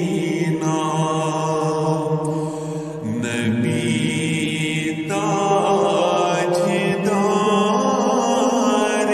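A naat, a devotional song in praise of the Prophet, sung as long held, slightly wavering notes over a steady low drone, with a new phrase starting about halfway through.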